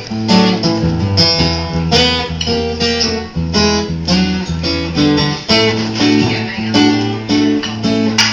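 Instrumental break in a live song: guitar strummed and picked, with a low bass note held underneath.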